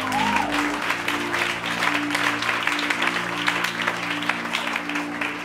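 Congregation applauding with many hands clapping unevenly over sustained chords held on a keyboard instrument.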